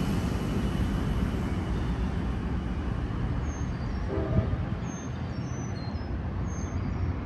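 Amtrak California passenger train with a Siemens Charger diesel locomotive rumbling away down the track, its low rumble slowly fading as it recedes. A short train horn note sounds about four seconds in.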